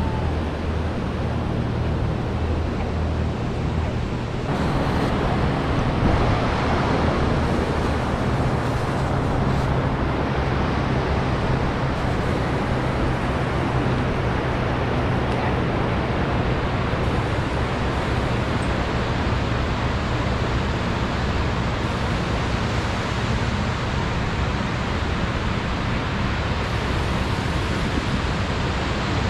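Steady rush of ocean surf and wind on a sandy beach, growing fuller about four and a half seconds in.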